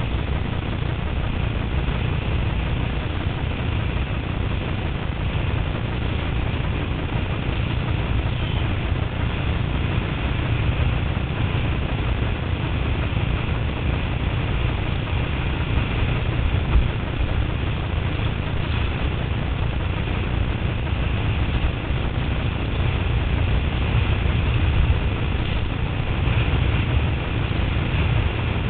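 Steady wind rumble buffeting the microphone of a camera on a windsurf board under sail, with water rushing under the board.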